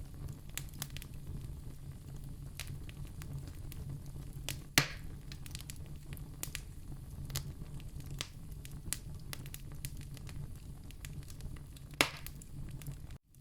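Fireplace fire crackling: many small snaps over a low, steady rumble of the flames, with two loud pops, one about five seconds in and one near the end.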